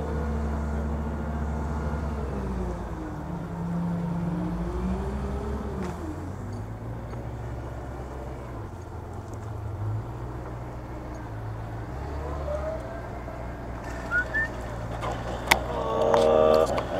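Crane's engine running, its pitch holding and then stepping up and down several times as the revs change. A few sharp clicks and knocks come in near the end.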